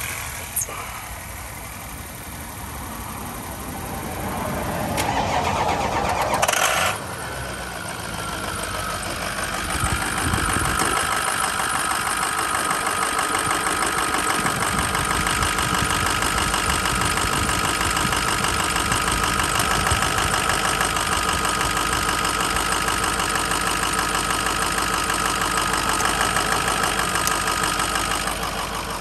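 Ford 6.0L Power Stroke V8 turbo-diesel starting about five seconds in, then settling to a steady idle with a constant high whine over the engine note.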